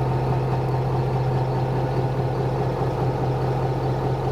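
Lobster boat's engine running at a steady pitch, a constant low hum with no change in speed.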